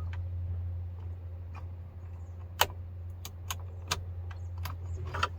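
Scattered light clicks and taps from the headlight switch knob and shaft being released and pulled out of the dash, over a steady low hum.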